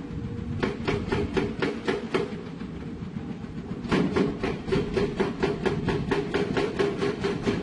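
Excavator-mounted hydraulic rock hammer pounding rock in a fast, even run of blows, about six a second, over the steady drone of the diesel engine. The blows slacken for a moment near the middle, then resume.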